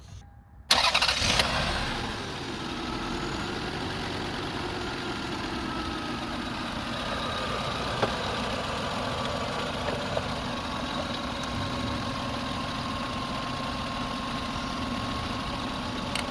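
2000 Lexus RX300's V6 engine starting: a loud burst under a second in as it fires, easing over a second or so into a steady idle.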